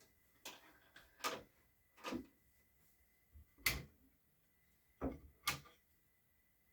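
Six short wooden knocks and clunks spaced irregularly, the loudest a little past the middle, as the mahogany phonograph cabinet's doors and lid are handled.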